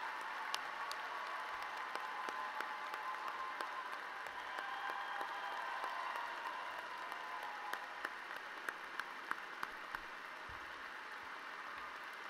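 Large crowd applauding steadily, many hands clapping at once; a few sharp single claps stand out near the end.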